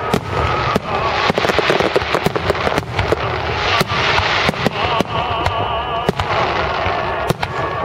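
Salute fireworks going off: rapid sharp bangs and crackling over a continuous dense rumble. A warbling tone sounds briefly about five seconds in.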